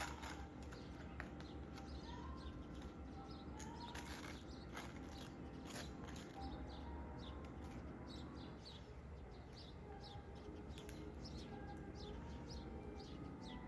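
Small birds chirping: many quick, short, high chirps repeating throughout. A few sharp knocks come in the first half, over a low steady hum.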